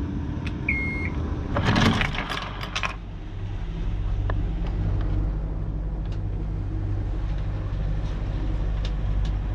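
A short beep from the catamaran's engine control panel, then a marine diesel engine cranking and catching between about one and a half and three seconds in, settling into a steady low idle.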